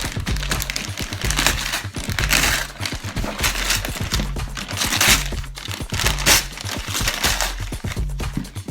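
Gift wrapping paper crinkling and tearing in several bursts over background music with a repeating bass line.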